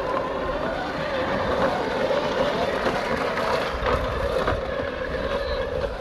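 Traxxas X-Maxx electric RC truck running while it tows a push reel mower, the mower's spinning reel cutting grass as it rolls; a steady whir with a few faint clicks.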